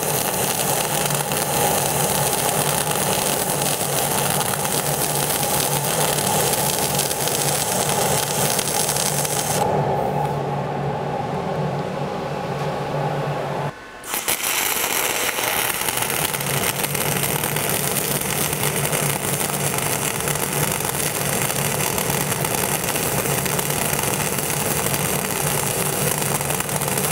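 Gas-shielded flux-cored wire MIG welding arc from an ESAB Rebel 235ic at 27.5 V and 400 in/min wire feed, crackling with a heavy snap that the welder doesn't like and takes as a sign the voltage isn't high enough for the process. About ten seconds in, the crackle stops for roughly four seconds, then the arc strikes again and runs on.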